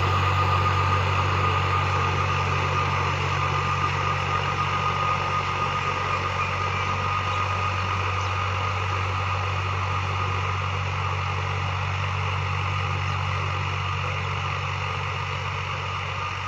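Al Ghazi 65 HP tractor engine running steadily, with a thin, steady high whine over its low hum, getting gradually a little quieter.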